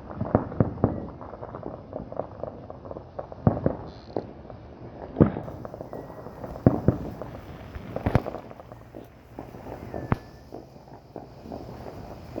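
Fireworks going off: an irregular series of booms and sharp bangs, some coming in quick clusters, with several louder blasts spread through.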